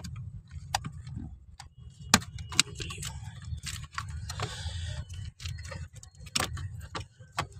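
Plastic wiring connectors being worked loose and unplugged from a Ford EcoSport's body control module: irregular sharp plastic clicks and rattles of wire and housing, over a low steady hum.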